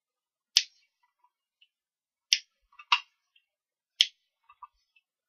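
A small clear-mounted photopolymer star stamp being pressed down onto cardstock again and again. It gives four sharp taps, a second or so apart, with faint ticks and rustles in between.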